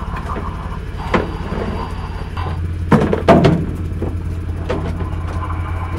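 A motor hums steadily and low while equipment is handled on deck, with several sharp knocks and clatters. The loudest come as a pair about three seconds in.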